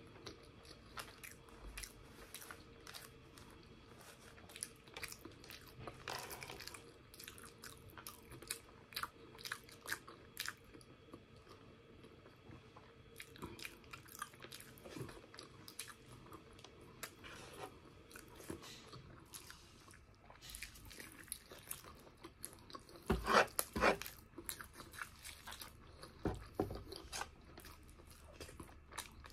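Wet chewing and mouth smacks of a person eating braised pork leg and rice by hand, in many short irregular clicks, with a louder cluster of eating noises about three-quarters of the way through.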